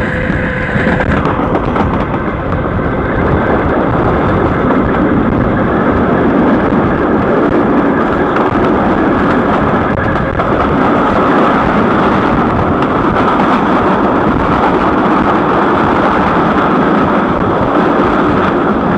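CPTM electric commuter train 1115 running with a loud, steady rumble and mechanical drone, the growling sound the title calls 'roncando'.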